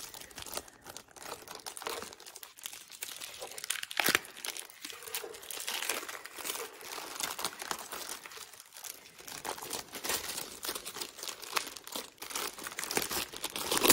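Clear plastic bag crinkling and rustling as it is handled and a journal cover is slid out of it, with a sharper crackle about four seconds in.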